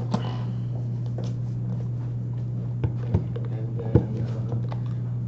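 Marker tapping and scraping against a whiteboard while writing: a few short sharp taps, the loudest about four seconds in, over a steady low room hum.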